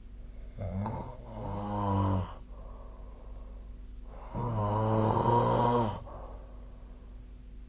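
A sleeping person snoring: two long snores, each about one and a half seconds, a little under four seconds apart, with a low steady hum underneath.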